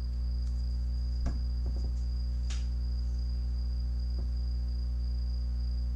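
Steady low electrical hum with a thin, steady high-pitched whine over it, and a few faint clicks.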